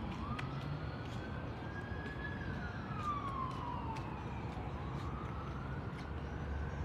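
Emergency-vehicle siren in a slow wail, its pitch rising and falling about once every four seconds, over a steady low background rumble.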